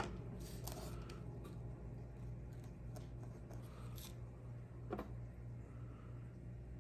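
A few faint, scattered clicks and taps of small objects handled at a wooden table, a plastic paint tube set down and a paintbrush worked, over a steady low hum.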